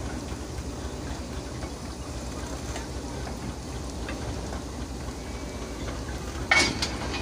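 Steady low rumble of a railway steam travelling crane rolling slowly along the track, then a single sharp, loud clank about six and a half seconds in, as it closes up on the wagon for coupling.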